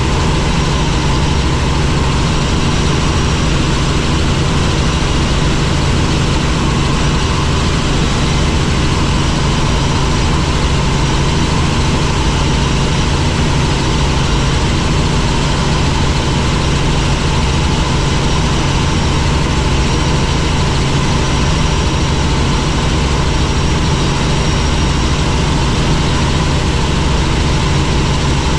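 Helicopter in flight: the steady, loud drone of its turbine engine and rotors, with a constant low hum and no change in pitch.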